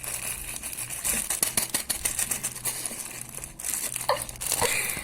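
Close, dense crinkling and crackling made of many rapid small clicks, with a few sharper ticks near the end.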